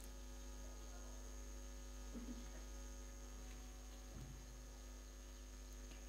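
Faint steady electrical hum on the recording, with two faint short noises about two and four seconds in.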